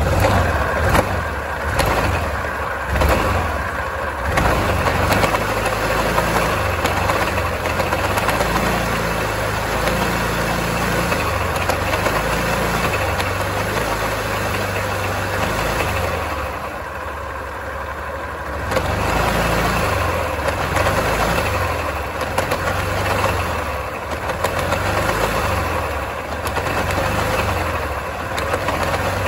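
Yamaha Grand Filano scooter's single-cylinder engine running, its speed rising and falling a few times, with a knocking 'tak-tak' from the CVT belt-drive cover. The mechanic takes the noise for damage inside the belt cover, the same fault that makes the scooter jerk when pulling away.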